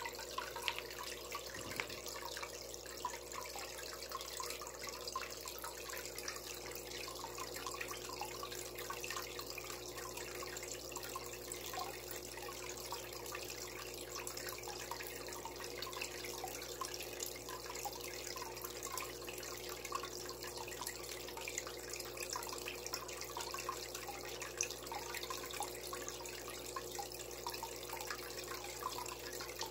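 Pond filter splashing and bubbling at the water surface of a goldfish tub, a continuous patter of small drips and bursting bubbles over a faint steady hum.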